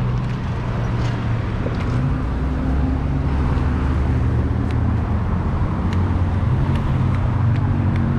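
Road traffic at an intersection: several vehicle engines running with a steady low hum under a constant wash of traffic noise.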